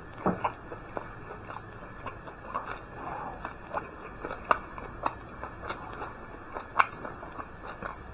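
Mouth sounds of eating steamed buns with raw chilies: wet chewing and biting, an irregular string of small clicks and smacks, with a few sharper ones in the second half.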